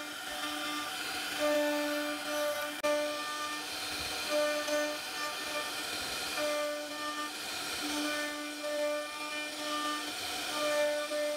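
CNC router spindle running at speed while a small bit carves relief into mahogany: a steady whine that swells and fades every second or so as the cutter bites into the wood.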